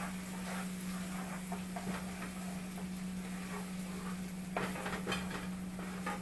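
Spoon stirring cream of chicken soup into onions in a pan, with a few sharp scrapes and taps against the pan a little past halfway, over a steady low hum and hiss.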